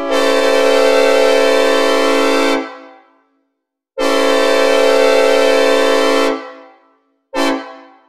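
Synthesized recreation of a Nathan K5LLA five-chime locomotive air horn sounding its chord: two long blasts of about two and a half seconds each, then a short blast near the end, each trailing off in a reverberant fade.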